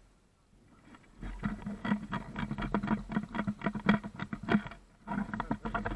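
Airsoft gun firing in a rapid string of shots, about six or seven a second, starting about a second in and running for nearly four seconds, with a few more shots near the end.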